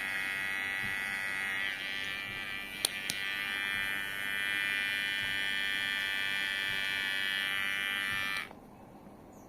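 Kemei electric hair clipper buzzing steadily, its tone shifting a little about 2 s in, with two sharp clicks around 3 s; it is switched off and cuts out suddenly near the end.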